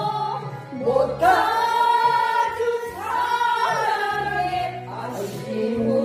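Music: a slow Korean ballad in a passage without words, its melody held and gliding between notes over a steady accompaniment.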